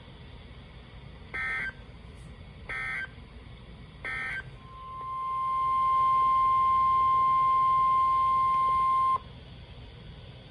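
Emergency Alert System tones on NOAA Weather Radio. Three short warbling bursts of SAME header data come about a second and a half apart. Then the 1050 Hz warning alarm tone fades up, holds steady for about three seconds and cuts off suddenly, announcing a severe thunderstorm warning.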